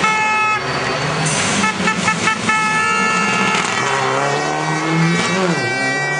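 Rally car engine rising in revs as the car comes through a bend, dropping briefly off the throttle near the end. Spectators' air horns blow in repeated blasts over it.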